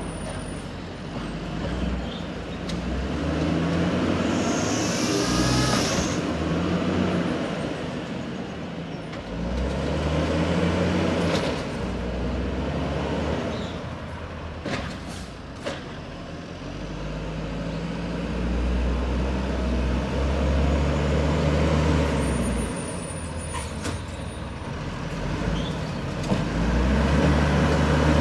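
WhiteGMC WX64 garbage truck's L10G natural-gas engine revving hard, again and again, climbing and falling in several long runs as it powers the Amrep rail-arm side loader. Short air-brake hisses and a few sharp knocks near the middle come in between.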